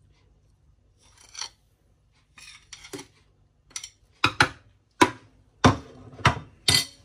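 Metal spoon scraping spices and flour off a ceramic plate into a plastic food chopper bowl: soft scrapes at first, then about six sharp knocks and clinks of the spoon in the last three seconds.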